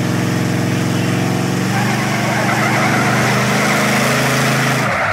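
Ford F-350 pickup engines running hard and steady under load in a truck tug of war. About two seconds in, a loud rushing noise joins the engine sound, and both cut off suddenly near the end.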